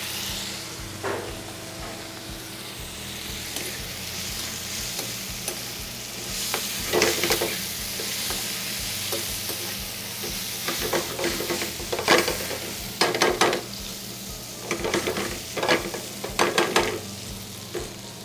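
Chorizo and nopales sizzling in a frying pan while a metal spoon stirs them. Several bursts of scraping strokes against the pan, about a third of the way in and again repeatedly in the second half, are louder than the steady sizzle.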